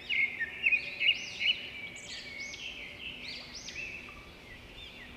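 Several birds chirping, with many quick, overlapping high calls and a few louder chirps in the first second or two.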